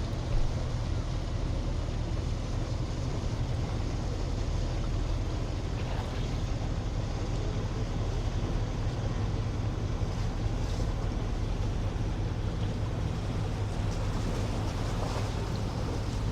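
Steady low drone of a motorboat engine out on the water, over a light wash of the sea.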